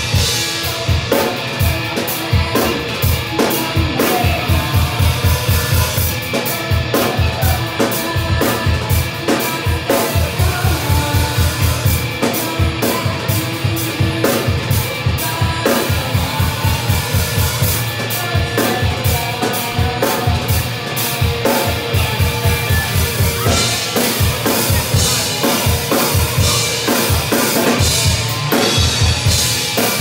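Live rock band playing: a drum kit driving a fast, steady beat of bass drum, snare and cymbals under electric guitar.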